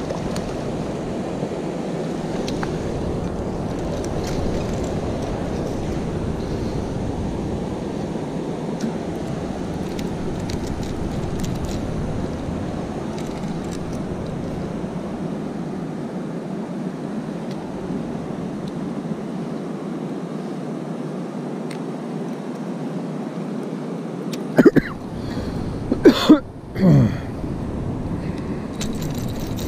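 Steady low rush of wind buffeting the microphone. Near the end come a few sharp, loud knocks and a short pitched scrape.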